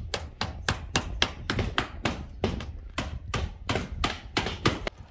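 Hammer nailing stone-coated steel roof tiles in place: fast, even strikes, about four a second.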